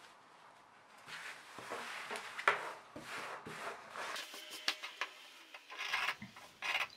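Scissors cutting through denim as the overhanging knee-patch fabric is trimmed away, with rustling as the fabric is handled and several short sharp snips.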